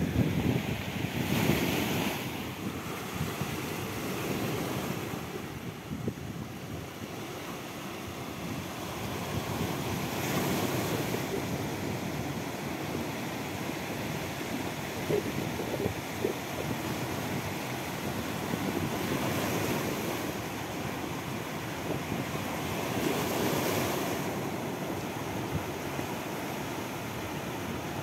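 Sea waves breaking and washing over a rocky, pebbly shore, with several louder surges of surf. Wind buffets the microphone.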